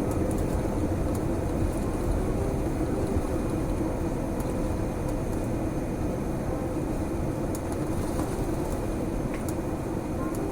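Steady rumble inside an airliner cabin: engine and airflow noise with a low hum, and a few faint ticks.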